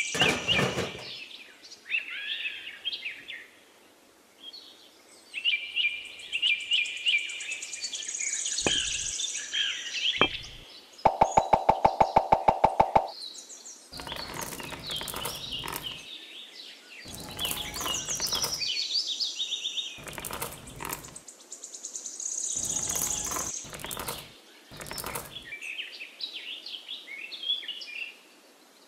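Small birds chirping and twittering on and off throughout. Short bursts of clatter come as small pebbles are dropped and set down. About eleven seconds in, a rapid run of ticks, about ten a second for two seconds, is the loudest sound.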